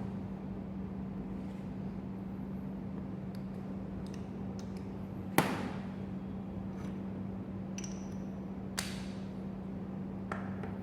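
Metal tools and injector parts clinking on a workbench: one loud ringing strike about halfway through and a few lighter clicks later, over a steady low hum.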